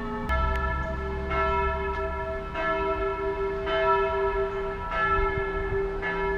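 Tower bells hung for full-circle change ringing, struck one after another about every 1.2 seconds, six strikes in all, each note ringing on under the next.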